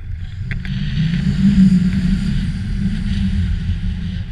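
Wind buffeting an action camera's microphone in paraglider flight: a low rumble with a hiss above it, swelling about a second in and easing near the end.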